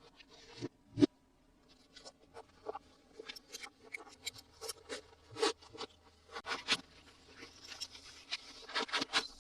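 Hands unboxing and handling plastic toys and their packaging: irregular clicks, taps, scrapes and crinkles, with the sharpest knock about a second in and a dense cluster of clicks near the end.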